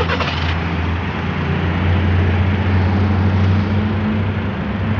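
A motor vehicle's engine running steadily close by: a constant low hum over street traffic noise, with a brief hiss right at the start.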